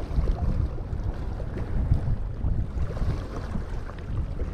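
Wind rumbling and gusting on the microphone over the wash of harbour water against the rocks.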